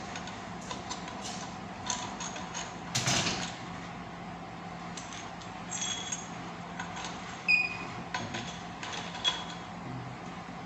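Steel parts of an opened differential clinking and tapping as they are handled: the ring gear and carrier knocked against the housing, with a few short ringing metal clinks about six and seven and a half seconds in. A steady low hum runs underneath.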